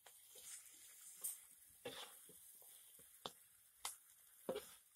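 Chicken pieces in red spice paste frying in a pan: a faint sizzle broken by sharp, irregular pops and crackles, about one a second.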